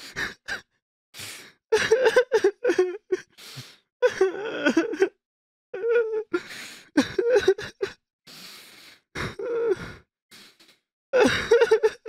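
A person crying and sobbing: broken, pitch-bending cries between sharp gasping breaths, with short silences in between.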